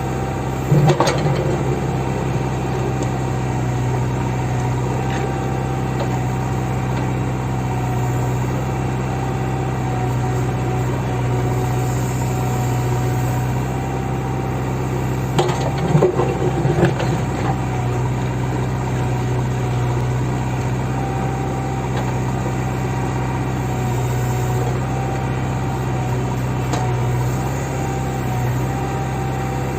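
JCB backhoe loader's diesel engine running steadily with a faint steady whine above it, and short metallic clanks about a second in and a few more around halfway.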